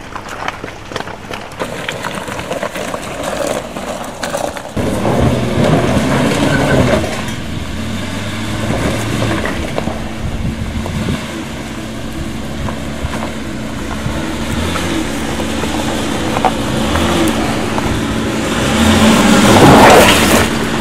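Tyres crunching over loose river gravel, heard from inside the vehicle. About five seconds in it switches to a Jeep Cherokee's engine running and revving, rising and falling, as it crawls over a rough dirt track. It is loudest near the end, as the Jeep comes close.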